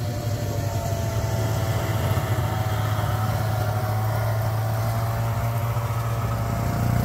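Polaris Wide Trak snowmobile engine running at a steady idle.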